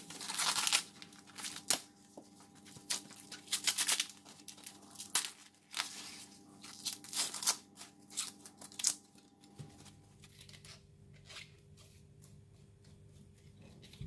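Fresh sweet corn husks being torn and peeled off the cobs by hand: a run of crisp tearing and rustling strokes that thin out and grow fainter after about nine seconds.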